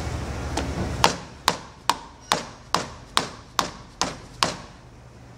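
About nine sharp hammer taps on metal, evenly paced at roughly two a second, each with a brief ring. The hammer is striking the top of a Bridgeport milling machine's 1.5 HP motor shaft to drive it out of the top bearing cap, which came up with the shaft because the bottom bearing is not holding as it should.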